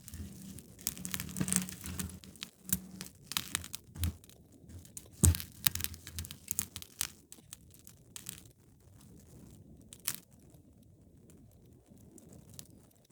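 Wood fire crackling in a fireplace: a dense run of pops and snaps for the first seven seconds or so, the loudest about five seconds in, then thinning out to a single sharp pop near ten seconds over a faint low hiss.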